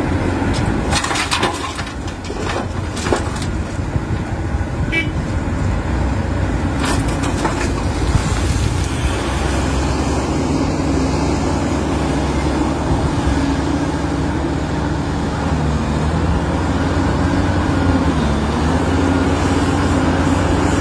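Large Caterpillar hydraulic mining excavator's diesel engine running steadily under load, with a constant deep drone and a steady tone that sags briefly near the end. In the first few seconds, several sharp knocks and clatters as dirt and rocks drop from the bucket into a steel dump-truck body.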